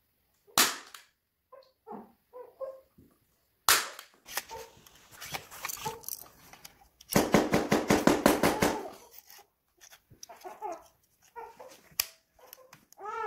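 Hand staple gun firing: two sharp snaps a few seconds apart, then a rapid run of clicking that lasts about a second and a half, with smaller clicks of the tool being handled in between.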